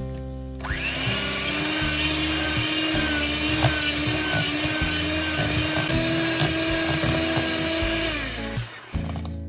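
Electric hand mixer running at a steady speed, its wire beaters churning egg into creamed butter and sugar in a glass bowl, with scattered clicks. It starts just under a second in and stops shortly before the end.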